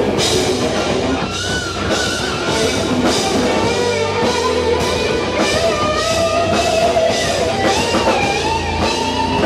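Live rock band playing: distorted electric guitar with a wavering lead line over drum kit and bass.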